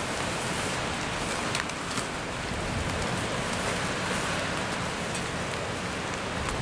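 Rain falling steadily in a storm, a continuous hiss with a few sharp drop ticks.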